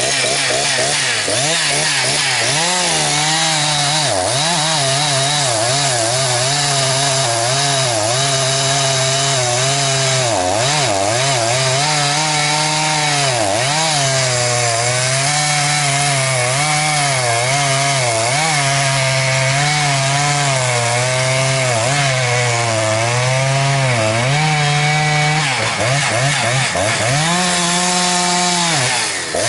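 Large two-stroke chainsaw cutting through wood at high revs. Its engine pitch sags and recovers again and again as the bar loads up in the cut, with a short drop in revs near the end.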